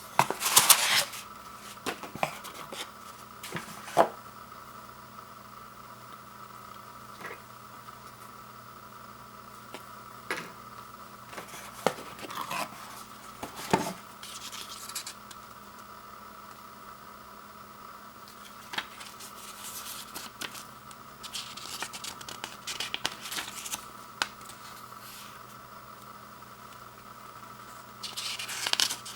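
Packaging and parts being handled while a doorbell kit is unboxed: scattered clicks and knocks of small plastic pieces, with short bursts of rustling and scraping of cardboard and plastic wrap. A faint steady hum runs underneath.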